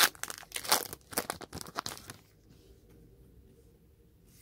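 A Pokémon trading-card booster pack's foil wrapper being torn open, with a quick run of rips and crackles over the first two seconds. Quieter crinkling and handling follow.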